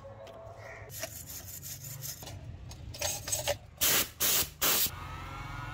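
Hissing spray bursts: a longer, uneven spray about three seconds in, then three short sprays in quick succession, over a low rubbing, scraping noise.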